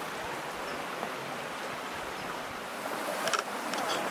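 Steady rush of flowing water from the gorge stream and its waterfalls, with a brief high-pitched sound about three seconds in.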